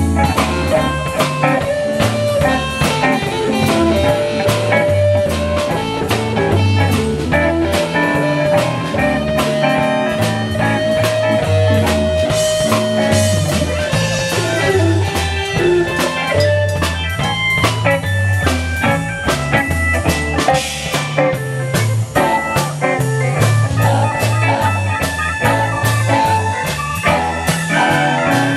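Live blues band playing an instrumental passage: electric guitars, bass, keyboard and a drum kit keeping a steady beat, with no singing.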